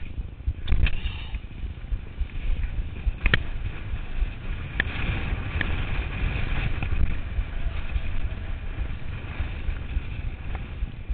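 Turner DHR downhill mountain bike running fast down a dirt trail: a steady low rumble of tyres and wind on a chest-mounted camera, broken by a few sharp clicks and knocks from the bike over bumps.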